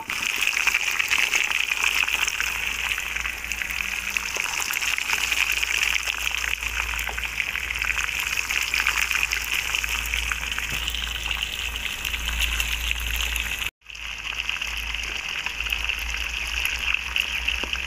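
Masala-coated fish pieces shallow-frying in hot oil in an aluminium karahi on medium heat: a steady, dense sizzle full of small crackles and pops. The sound cuts out for an instant about fourteen seconds in, then carries on.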